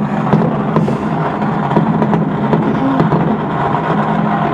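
Dense, continuous crackle of Spring Festival fireworks and firecrackers going off on all sides, many small pops and bangs overlapping with no gaps.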